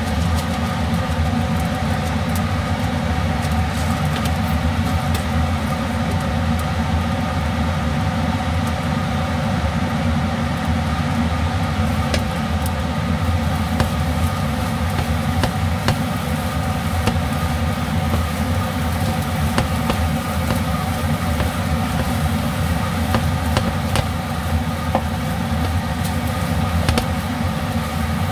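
Steady drone of a kitchen exhaust fan: a low hum with several held tones. Over it come faint scattered ticks and scrapes of a wooden spatula stirring fried rice in a nonstick pan.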